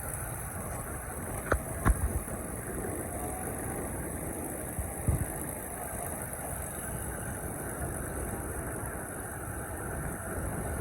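Steady hum of aircraft engines running at a distance, with a few sharp knocks about one and a half, two and five seconds in.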